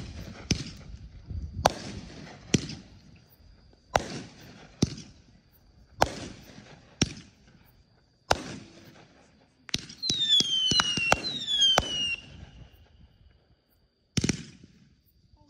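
Aerial fireworks going off: a run of sharp bangs, roughly one a second. About ten seconds in, several whistles fall in pitch together with crackling, and one more bang comes near the end.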